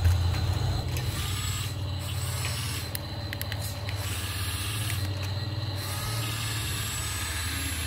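Small electric motors and gearboxes of a radio-controlled model excavator whirring steadily as it works its boom and bucket in sand, with a few short clicks about three seconds in.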